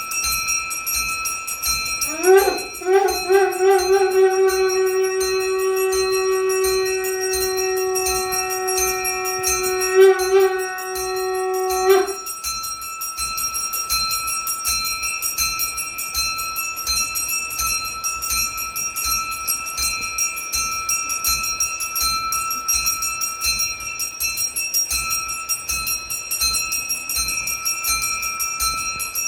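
Puja bells ringing rapidly and continuously. About two seconds in, a conch shell is blown in one long held note that swoops up at the start, wavers briefly near the end and stops abruptly after about ten seconds, leaving only the bells.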